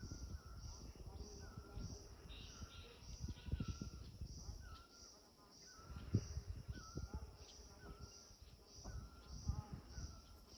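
Insects chirping in an even rhythm, about two chirps a second, over a faint steady high buzz, with short bird calls here and there. A low, uneven rumble sits underneath.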